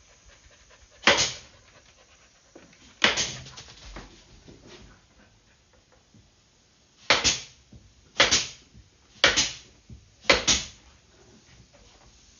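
Senco pneumatic pin tacker firing six times, each shot a sharp crack with a short air release, driving pins into glued Baltic birch plywood box joints.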